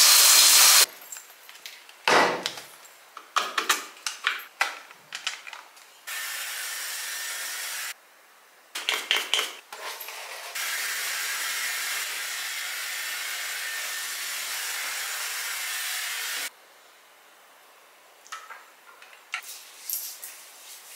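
Rain shower head spraying water, loud and even, cut off just under a second in. After that come short knocks and rustles of handling, and two stretches of a steady, quieter hiss that start and stop abruptly.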